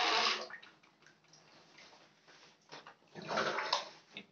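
Water sloshing and splashing in a plastic tub as a hand churns a toy turtle through it, with a louder swirl of splashing about three seconds in.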